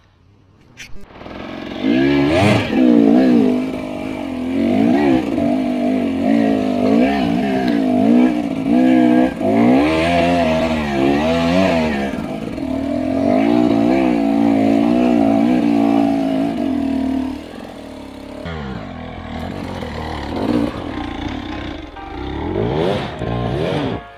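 Enduro motorcycle engine revving up and down again and again as the throttle is worked on a climb. It drops back quieter about two-thirds of the way through and revs up once more near the end.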